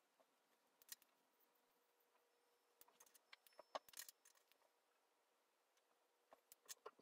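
Near silence with a few faint clicks and light taps from markers and coloured pencils being handled and set down on a marble tabletop: one about a second in, a cluster around three to four seconds in, and a few more near the end.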